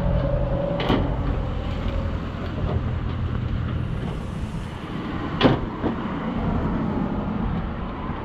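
Two sharp knocks, about a second in and again about five seconds in, as a sheet-metal panel of an outdoor HVAC condensing unit is handled and fitted, over a steady low hum.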